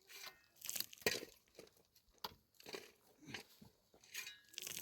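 Faint, irregular clicks and crunching sounds, like small objects being handled.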